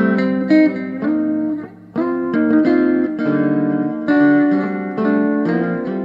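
Two Fender Telecaster electric guitars playing rhythm parts together as an overdubbed duet through a custom-built amplifier, one using both pickups and the other the bridge pickup. They play chords and picked notes, with a brief break about two seconds in.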